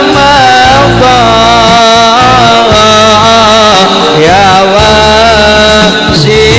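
Sholawat music in a Middle Eastern style: a wavering, ornamented melody line over a pulsing bass.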